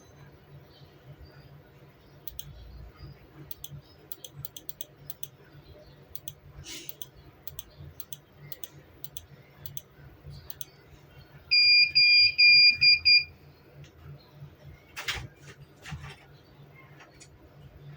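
Electronic beeper sounding a quick run of about five short, high-pitched beeps lasting under two seconds, set among faint clicks and a knock.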